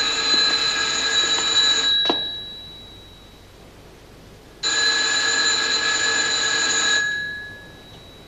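Desk telephone bell ringing twice, each ring lasting about two seconds and dying away after it, with a pause of about two and a half seconds between rings.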